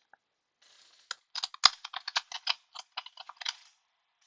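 A quick, irregular run of light clicks, like typing on a computer keyboard, starting about a second in and stopping shortly before the end.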